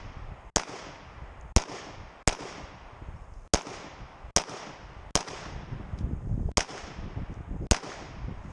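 The shooter's own semi-automatic pistol firing, heard from the shooter's position: eight sharp shots, mostly about a second apart with some closer pairs, each followed by a short echo that fades away.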